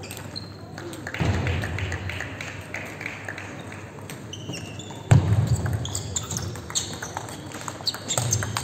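A table tennis rally: the plastic ball clicking off the rubber paddles and the table in quick succession, echoing in a large hall, with short squeaks of shoes on the sports floor. A heavier thump sounds about five seconds in.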